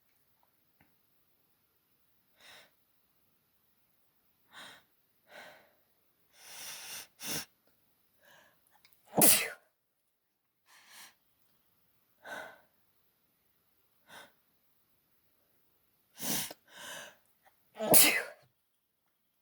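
A woman's allergy sneezing fit: a string of about a dozen short sneezing bursts with pauses between them. The two loudest come about nine seconds in and near the end.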